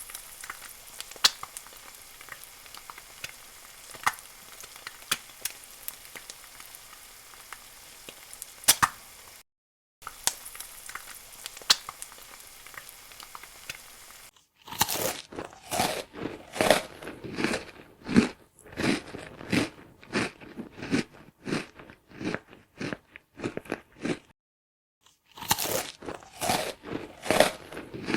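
Food sizzling in hot fat, a steady crackle with scattered sharp pops, stopping for a moment near ten seconds. About halfway through it gives way to loud crunching, two to three crunches a second, like crisp food being bitten and chewed.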